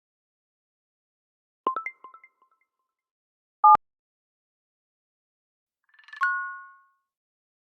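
Three of the iPad's built-in iPadOS system sound effects, played one after another with silent gaps. First comes a quick run of short chime notes, then a brief loud two-tone beep, then a chime that swells and rings out near the end.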